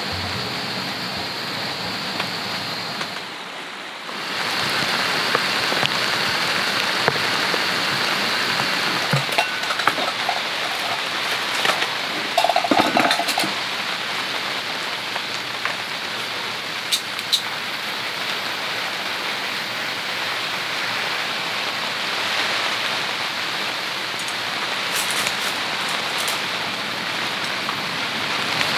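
Steady rain falling on the tent, an even hiss of drops, with a few light clinks and knocks of camping gear being handled.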